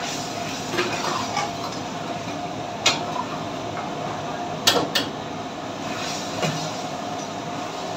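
Metal ladle stirring and scraping in a wok over the steady roar of a commercial kitchen range, with sharp clanks of ladle on wok about three seconds in and twice close together near five seconds.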